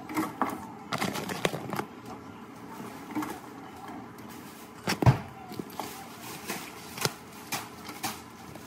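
Hard crab-leg shells knocking against a stainless steel stock pot as they are dropped in: a scatter of short clicks and knocks, with one louder thump about five seconds in.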